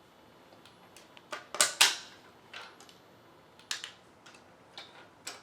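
Fire alarm strobe flashing about once a second with its horn disabled: each flash is a faint tick followed by a thin, very high whine. Over it come several sharp, loud plastic clicks and clacks of the alarm hardware being handled, the loudest about two seconds in.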